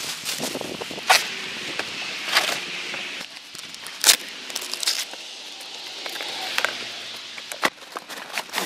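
Cardboard and kraft packing paper being handled: paper crinkling and cardboard rubbing and scraping, with sharp crackles and snaps as a box flap is pried open.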